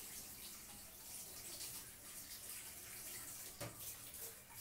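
Water running from a kitchen tap, a steady hiss that cuts off near the end.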